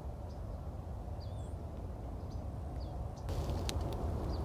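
Faint, short chirps of small birds over a steady low rumble of open-air ambience; about three seconds in, crisp clicks and splashes of water begin as a hand dips into the warm spring-fed stream.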